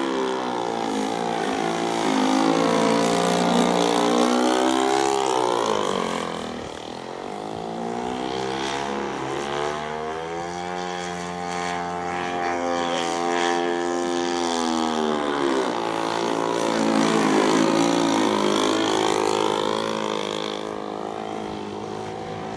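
Model airplane with a string-trimmer two-stroke engine flying overhead, its propeller-driven engine note swelling and fading with shifting pitch as it makes passes. It is loudest twice: a few seconds in and again later.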